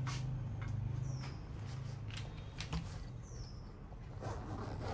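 Light handling sounds: a few small clicks and scrapes as a watch is set in a stainless steel dish, then a zipper pulled open on a fabric tool case about four seconds in.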